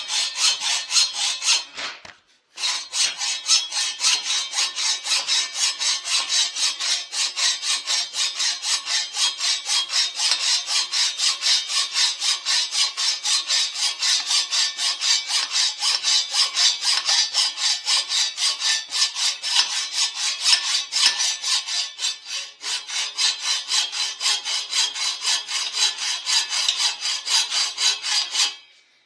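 Hand hacksaw cutting through the cylinder of a Husqvarna 1100 chainsaw in steady, rapid back-and-forth strokes. The sawing pauses briefly about two seconds in, then runs on until it stops just before the end.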